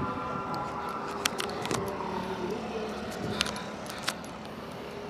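Road traffic: vehicle engines running steadily, with about four sharp clicks scattered through it.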